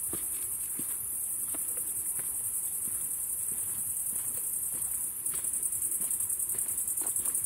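A night chorus of crickets chirping, a dense, rapidly pulsing high-pitched trill that grows louder about five seconds in. Scattered soft crunches of footsteps on the forest floor come through underneath.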